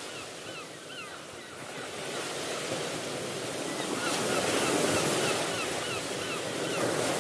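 A steady rushing noise of surf with two runs of short, repeated bird calls, about three a second: one run in the first second and another from about four to six and a half seconds in.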